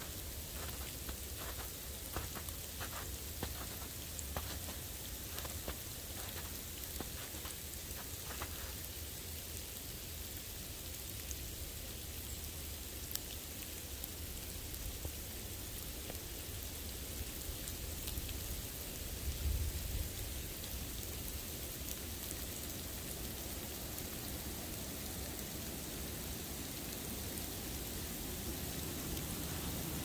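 Footsteps crunching through snow, about two steps a second, for the first nine seconds or so, then stopping. A steady hiss of outdoor noise runs under them throughout, with a low rumble and one brief louder bump about twenty seconds in.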